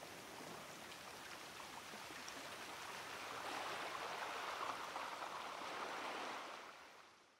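Faint rushing water, like a stream, that swells about three and a half seconds in and then fades out.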